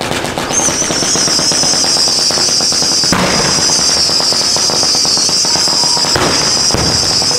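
Fireworks going off in rapid dense crackling like machine-gun fire, over a steady high hiss. There are louder bangs about three seconds in and again around six seconds.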